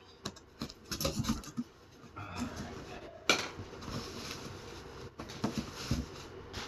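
Scattered clinks, scrapes and rustles of small parts and packaging being handled, with one sharp click about three seconds in.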